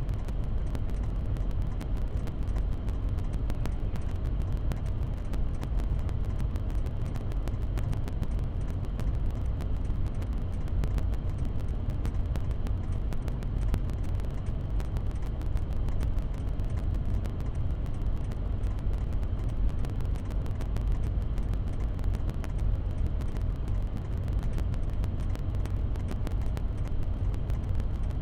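Steady low rumble of a vehicle engine running, with a fine crackle throughout.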